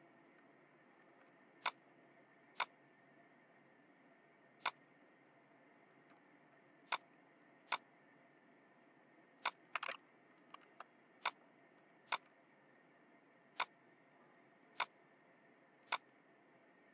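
Computer mouse clicking: about a dozen single sharp clicks a second or two apart, with a quick flurry of taps near the middle, over faint steady room noise.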